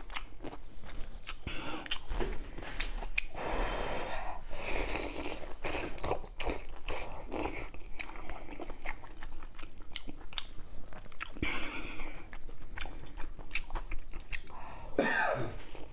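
Close-miked mukbang eating: a person chewing and biting food from chopsticks, with many small wet mouth clicks.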